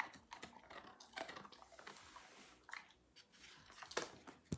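A dog chewing a treat: faint, irregular crunches and clicks.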